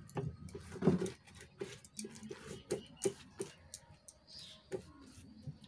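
Quiet, irregular clicks and rustles of a large colocasia (arbi) leaf being handled and pressed flat by hand.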